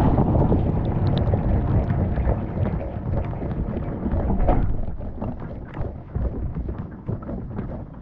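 Dishwasher spray jets of water rushing and drumming over the dishes and racks, heard from inside the dishwasher. About halfway through the spray dies away, leaving water dripping and trickling in scattered ticks and splashes.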